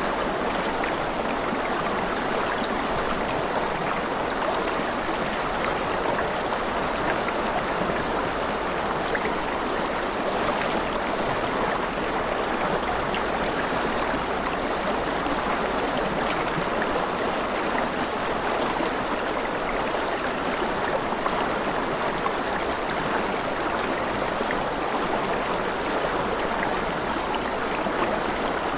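River water rushing steadily over rocks: a constant, even splashing and gurgling.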